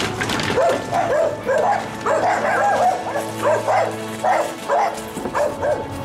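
A scared small terrier barks over and over, in short, sharp barks about two to three a second, with background music underneath.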